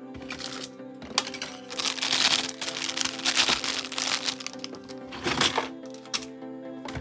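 Background music, with plastic packaging crinkling for a couple of seconds and sharp clicks as plastic toy pieces are handled.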